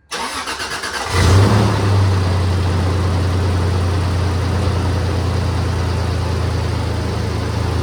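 2001 Toyota 4Runner's supercharged V6 being cranked by the starter for about a second, catching with a brief rev, then settling into a steady idle. This is the first start after a radiator replacement.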